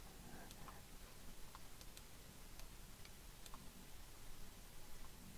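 Faint, irregular clicks of a computer mouse being clicked and dragged, about a dozen over a few seconds, over a low steady hiss.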